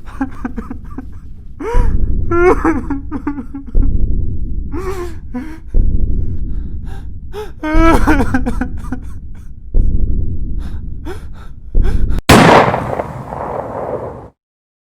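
Loud meme audio: a voice over heavy low thumps that land about every two seconds, then a sudden loud blast about twelve seconds in that dies away and cuts off abruptly.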